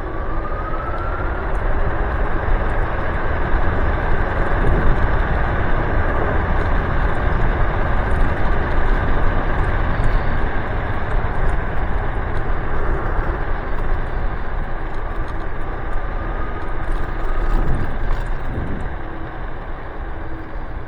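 Riding an electric scooter with solid tyres (Nanrobot Lightning 2.0): wind rushing over the microphone and tyre rumble. A faint motor whine rises in pitch at the start as it speeds up, and the noise eases off near the end as it slows.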